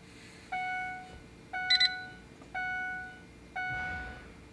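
Vehicle dashboard warning chime dinging about once a second, each ding fading away, as the ignition key is switched on. A brief, sharper burst of higher electronic beeps comes near the second ding and is the loudest sound.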